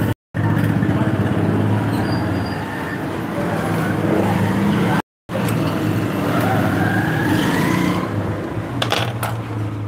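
Traffic noise: a motor vehicle engine runs steadily, and its pitch rises about seven seconds in. A few sharp clicks come near the end, and the sound cuts out briefly twice.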